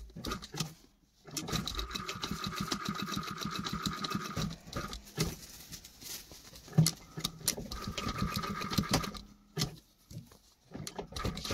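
SunStar industrial single-needle sewing machine stitching fast in a few runs with short stops between them, sewing a small rectangle of stitches that outlines a buttonhole.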